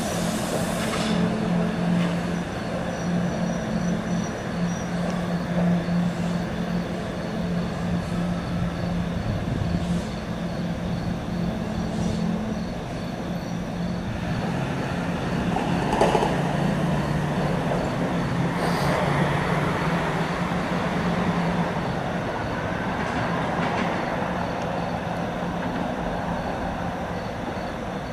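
SEPTA Kawasaki subway-surface streetcar running slowly through the tunnel over curved track, with a steady low hum, a few sharp clicks as the wheels cross rail joints and switches, and faint wheel squeal.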